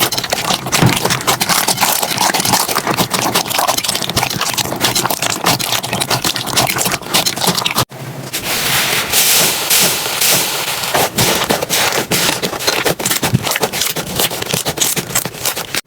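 Slime being squished and pressed, giving a dense stream of small crackles and pops. The sound breaks off briefly about eight seconds in and starts again with a slightly different, hissier crackle.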